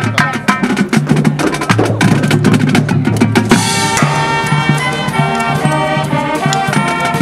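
Marching band playing: the drumline of snare and bass drums plays a fast, dense passage, then about three and a half seconds in the horn line comes in with held chords over the drums, with a low bass note sounding underneath.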